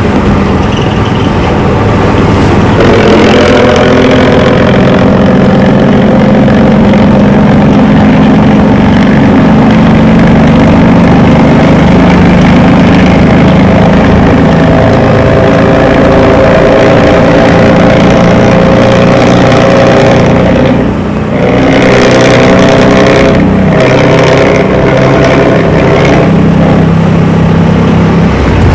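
Bus diesel engine running hard through a loud, growling 'ngorok' exhaust, holding a steady drone, then dipping briefly about two-thirds of the way through before pulling again.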